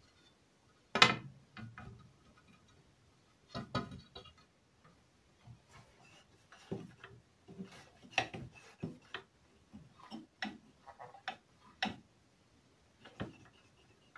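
Irregular clicks and light knocks of small parts and tools being handled while a radio is worked on, with one sharper knock about a second in.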